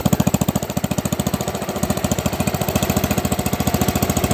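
Single-cylinder engine of a restored 1964 John Deere 110 garden tractor running steadily at idle, an even, rapid pulse of firing strokes through the muffler, a little softer after about a second and a half.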